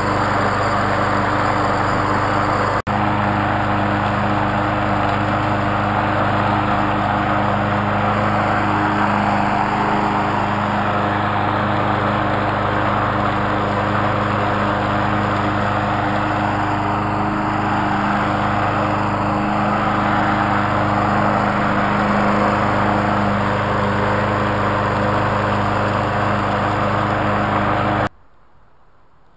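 Troy-Bilt TB230 21-inch walk-behind lawn mower's small gasoline engine running steadily at full speed while cutting grass. It cuts off abruptly near the end.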